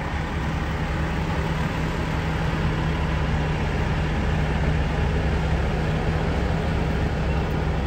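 A vehicle engine running steadily: a low rumble with a constant low hum.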